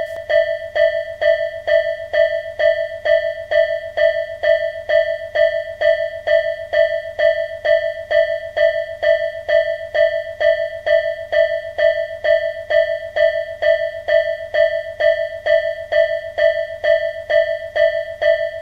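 Japanese railway level crossing warning bell ringing steadily: one bell-like tone struck about twice a second, the crossing's alarm signalling that a train is approaching or passing.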